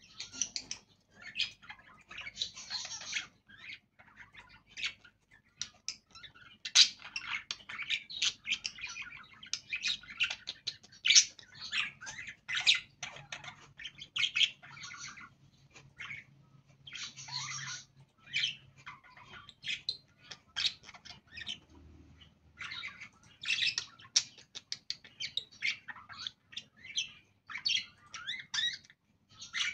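Budgerigars chattering: a continuous run of quick, short chirps and squeaky warbles, broken only by brief gaps.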